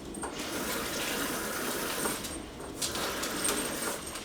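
Kitchen tap running water into a plastic zip-top bag, the flow easing off a little over two seconds in and then starting again.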